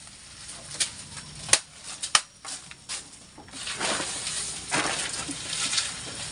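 A machete chopping green forage leaves on a block, about four sharp strikes spaced less than a second apart. Then a longer rustle of a pile of long green leaves being handled and shifted.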